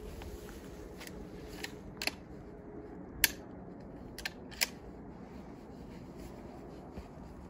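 Several short, sharp clicks and knocks, the two loudest about three and four and a half seconds in, over a steady background hiss; no gunshot.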